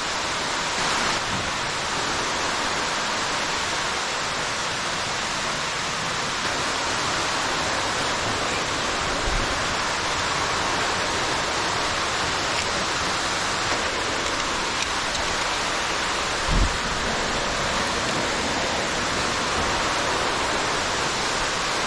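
Steady rushing of an underground waterfall, with one short, dull low thump about three quarters of the way through.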